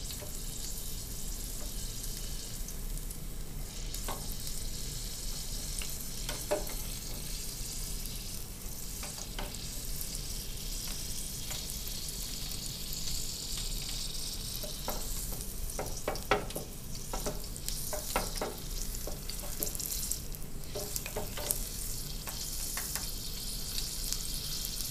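All-beef skinless hot dog deep-frying in 375° oil in an electric countertop deep fryer: a steady high sizzling hiss with scattered pops and crackles, more of them in the second half.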